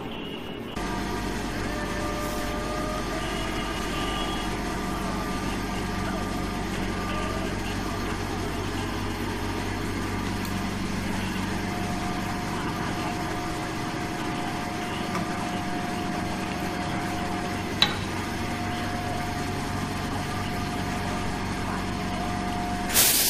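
Steady electrical hum of running workshop machinery. There is a single sharp click late on, then a short, loud air hiss near the end, like a pneumatic press releasing.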